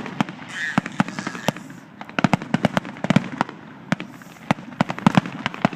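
Fireworks going off: a rapid string of sharp bangs and crackling pops, densest about two to three and a half seconds in and again near the end.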